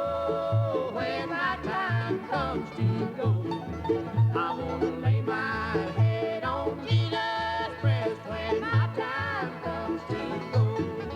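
Bluegrass-style country music with plucked strings over a steady bass note that comes about one and a half times a second.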